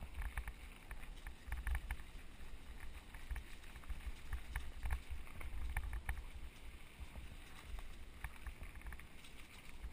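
Mountain bike riding fast over a bumpy dirt singletrack: wind rumbling on the microphone, with frequent irregular clicks and rattles as the bike jolts over the trail.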